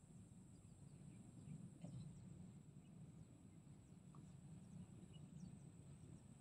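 Near silence: faint outdoor riverbank ambience, a low steady rumble with a few faint scattered chirps.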